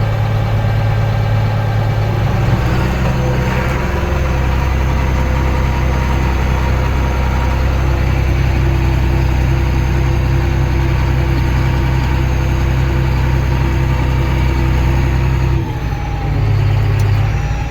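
A vehicle engine running steadily with a low hum. Its tone shifts about two and a half seconds in, and near the end it drops abruptly.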